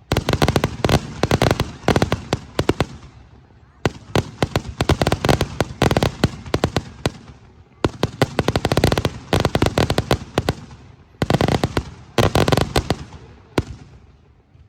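Aerial fireworks crackling: four volleys of dense, rapid sharp pops, each lasting a few seconds, separated by short lulls and fading out near the end.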